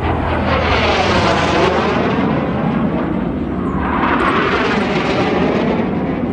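Airplanes flying low past, the roar swelling and fading twice in quick succession with a sweeping, phasing pitch as each passes overhead.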